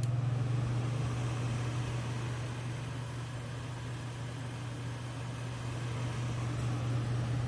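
Dometic 13,500 BTU rooftop RV air conditioner's blower fan running on low in fan-only mode, compressor off: a steady rush of air over a low electrical hum.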